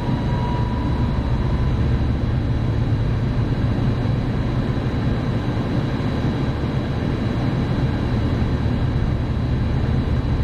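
AAON rooftop HVAC unit's fan running steadily, a low rush of air and motor noise with a faint high steady whine. The fan has just been brought on by jumpering past the VCM-X control module.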